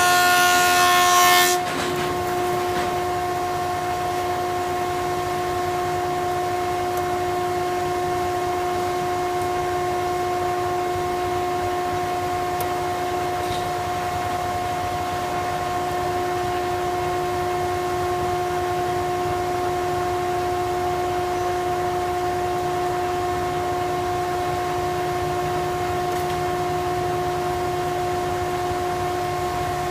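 Thickness planer running. For about the first second and a half it cuts a board, a louder rushing noise. It then runs on with no load, giving a steady whine.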